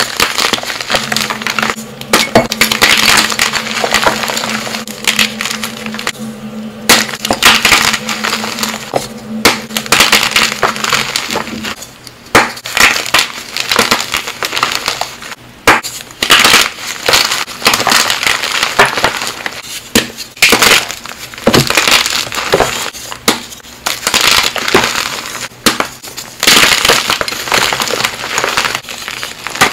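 Blocks of pearly gym chalk being snapped apart and crushed in bare hands: dense, crisp crunching and crackling as the chalk crumbles to powder, with many short snaps throughout.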